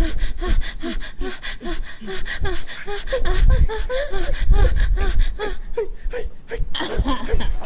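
A voice panting and gasping in quick short breathy cries, about three a second, each rising and falling in pitch, over many sharp clicks.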